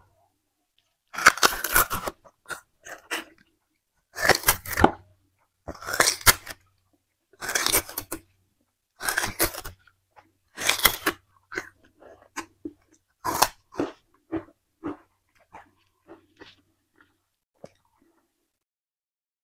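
Sugarcane being bitten and chewed close to the microphone, the fibrous stalk crunching loudly in about seven strong crunches roughly a second and a half apart, then fainter, scattered crunches as the chewing dies down near the end.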